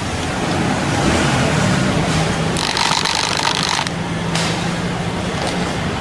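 Maktec electric drill running, its bit boring into the plastic housing of a washing machine's control panel, with a harsher cutting noise for about a second midway.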